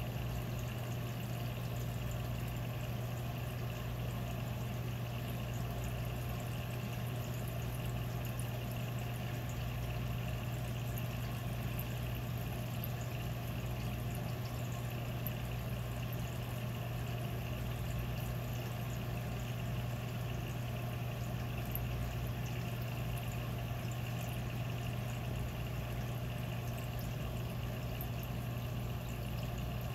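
Reef aquarium equipment running: a steady low pump hum under a constant wash and trickle of circulating water.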